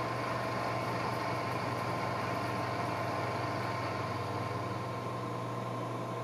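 Precision Matthews PM-949TV milling machine running steadily with a constant low hum, milling flats on a lathe spider body.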